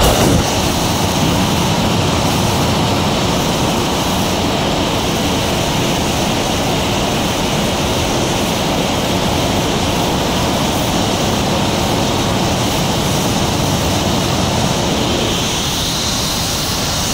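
Liquid bipropellant rocket engine hot-firing on a test stand: a loud, steady rushing noise that starts abruptly at ignition and holds evenly through the burn.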